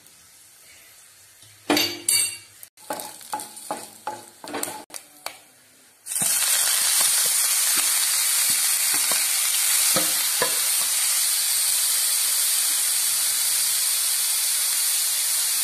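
Several knocks and clinks against the pan, then about six seconds in a sudden loud, steady sizzle as the grated bitter gourd, onion and coconut mix goes into hot oil with curry leaves and dried red chillies and is stirred with a spatula.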